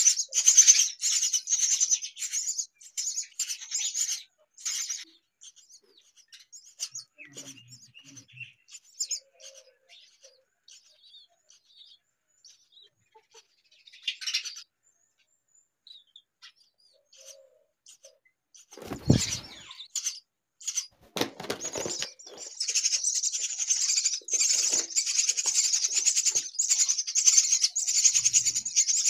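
Baby myna birds chirping rapidly and high-pitched, a dense chorus for the first few seconds and again through the last third, with only scattered chirps in between. Two dull rustling bumps come just past the middle.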